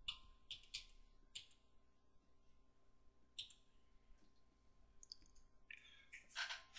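Faint keystrokes on a computer keyboard: a few separate taps as digits are typed, then louder clicking near the end.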